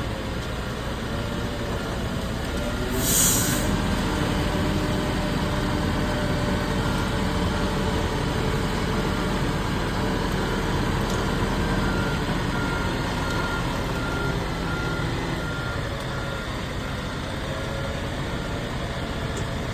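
Heavy machinery engine running steadily while a load is lifted, with a short burst of air hiss about three seconds in and a faint, evenly repeating warning beep.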